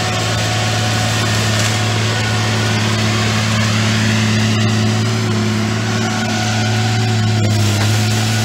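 Fabtek FT-133 tracked harvester's diesel engine running steadily under load, with a rising whine from the machine about halfway through as the harvester head works the felled pine.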